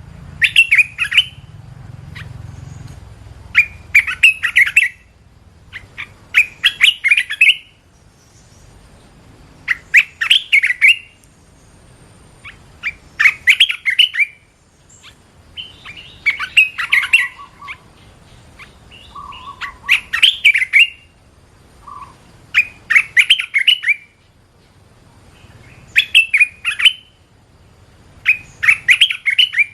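Red-whiskered bulbul singing: short, bubbling phrases of quick warbled notes, repeated about every three seconds.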